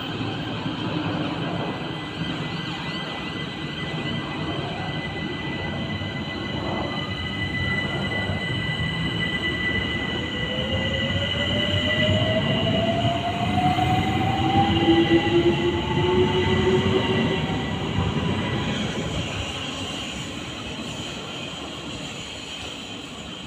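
Train passing: a whine rising steadily in pitch over steady high-pitched squealing and a rumble, growing louder to a peak about two-thirds of the way through and then fading away.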